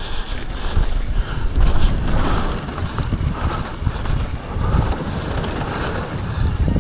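Wind buffeting the microphone of a mountain bike riding down a trail, with a steady low rumble from the ride rising and falling in gusts.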